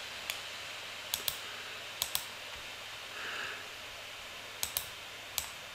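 Computer mouse clicking: about eight short sharp clicks, most of them in quick pairs, over a low steady hiss.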